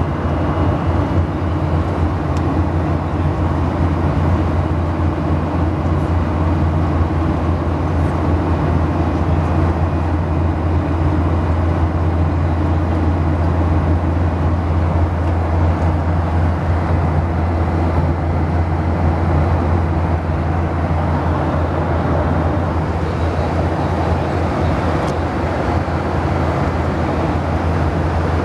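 Airliner cabin noise in cruising flight: a steady, loud drone with a strong low hum.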